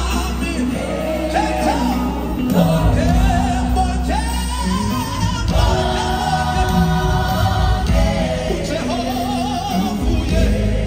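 Live gospel music: a choir singing with instrumental accompaniment, a wavering lead vocal line over held choir chords and a steady low bass.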